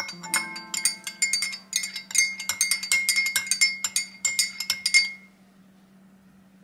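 A metal spoon stirring coffee in a glass mug, clinking rapidly against the glass with each clink ringing briefly. The clinking stops about five seconds in.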